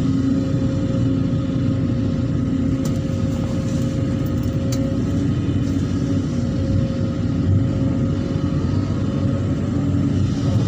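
Excavator's diesel engine running steadily at work, with a steady whine over the engine drone and a few faint clicks about three to five seconds in.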